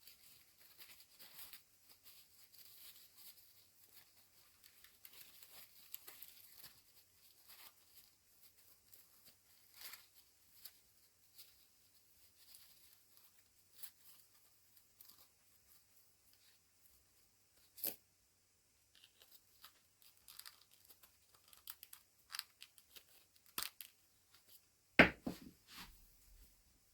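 Faint rustling and tearing of plastic toy packaging as an action figure and its accessories are unwrapped and handled, with scattered small clicks and one louder knock near the end.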